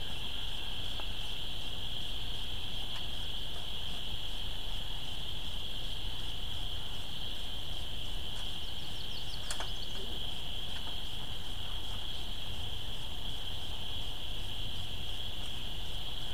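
Steady, unbroken high-pitched chorus of distant calling frogs, typical of spring peepers, with low wind rumble on the microphone. A single light click sounds about nine and a half seconds in.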